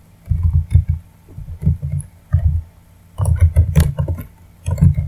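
Typing on a computer keyboard: irregular runs of keystrokes, heard mostly as dull low thumps with a few sharper clicks.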